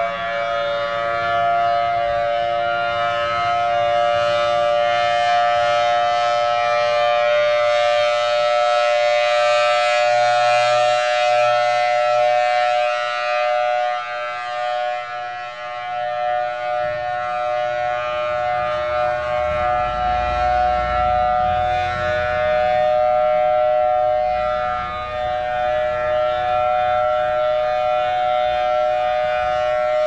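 Federal Signal Thunderbolt outdoor warning siren sounding the Alert (steady tone) signal: a held two-note chord at a constant pitch. Its loudness swells and dips as the rotating horn sweeps toward and away.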